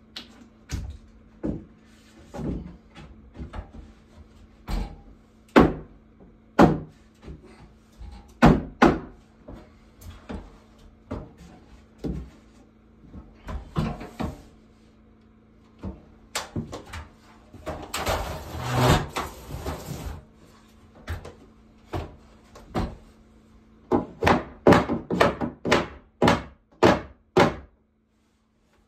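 Hammer blows on wooden ceiling boards as they are fitted overhead: scattered single knocks, then a quick run of about eight strikes near the end, with about two seconds of steady noise midway.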